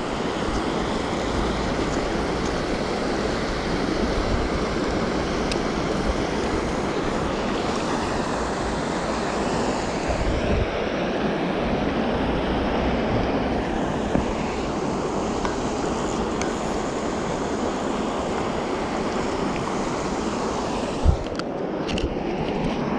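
Steady rush of water pouring over a small river weir, with a single knock near the end.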